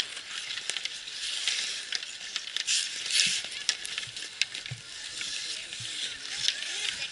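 Ice hockey skate blades scraping and carving on rink ice, with a longer scraping hiss about three seconds in, and sharp clacks of hockey sticks hitting the puck and the ice.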